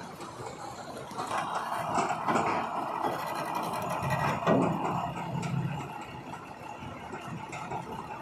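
Kobelco hydraulic excavator's diesel engine working under load as the machine climbs onto a lowbed trailer. It swells to its loudest about four and a half seconds in, with scattered knocks, then eases off.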